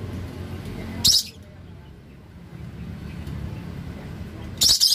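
Caged lovebirds giving two short, shrill, high-pitched screeches, one about a second in and one near the end, over a steady low background rumble.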